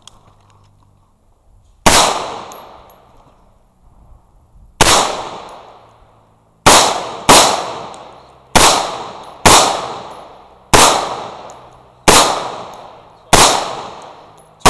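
Pistol shots fired one at a time, about nine in all. The first two come a few seconds apart, then a steadier string follows at roughly one shot a second. Each shot is loud and trails off in a long echo.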